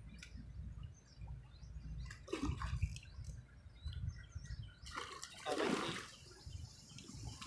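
A hooked fish thrashing and splashing at the water's surface while being played on a long fishing pole, with a short splash about two and a half seconds in and a louder one around five to six seconds in. A low rumble runs underneath.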